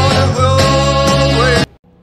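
Background music with a steady pulsing bass line that cuts off abruptly near the end.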